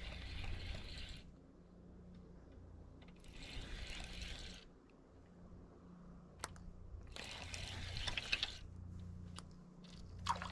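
Spinning reel cranked in three short spells, each a second or two long, its gears whirring as line is wound in.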